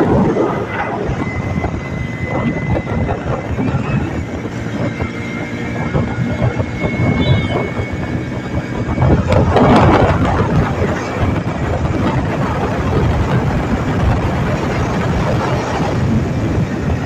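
Hero motorcycle riding at highway speed: engine and road noise mixed with wind rushing over the microphone. There is a faint steady high whine during the first half, and the rush swells louder about nine to ten seconds in.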